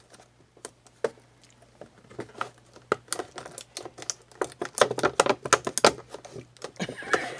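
Stiff clear plastic of a doll box's window crackling and crinkling as it is cut and pulled open with scissors. A run of sharp crackles, scattered at first and thickest about three to six seconds in.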